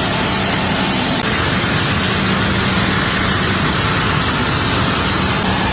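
Engine running steadily and loudly, a dense even noise with a constant low hum and a faint high whine.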